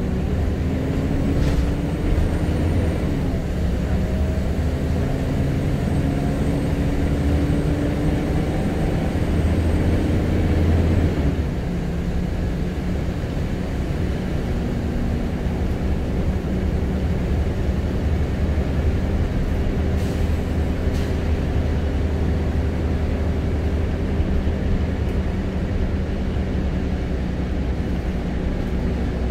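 Scania L94UB Wright Solar single-deck bus heard from inside the saloon, its engine note rising as it accelerates, dropping at gear changes about three and eleven seconds in, then running steadily at cruising speed.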